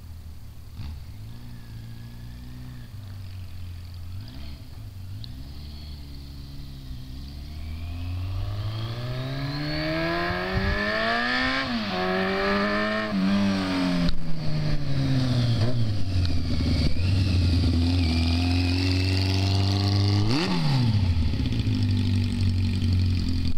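Yamaha XJ650 Seca's inline-four engine accelerating through the gears as it approaches, rising in pitch with a drop at a gear change, growing louder. Past the halfway point it eases off and its pitch falls, and near the end there is a quick throttle blip.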